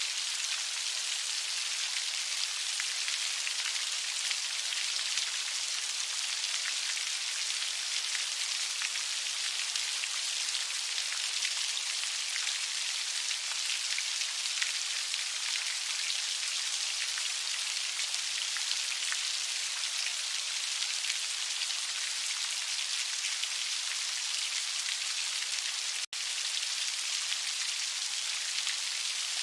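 Heavy rain falling steadily: a dense, even hiss with the patter of individual drops. It cuts out for a split second near the end, then resumes unchanged.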